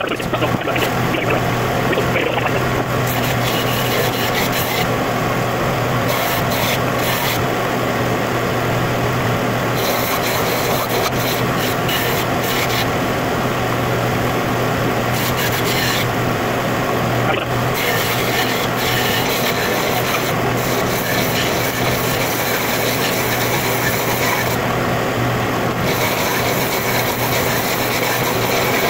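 Continuous rasping and rubbing of a tool working the wood of a walnut hammer handle as it is shaped, over a steady low hum.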